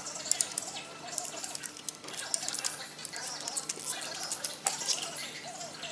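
Water trickling and dripping, with many light patters and small clicks.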